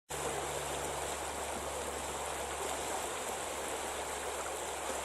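Creek water running steadily over the streambed, an even rushing noise.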